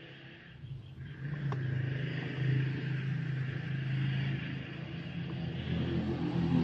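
An engine running with a low steady hum that swells about a second in and stays up, with a single click about a second and a half in.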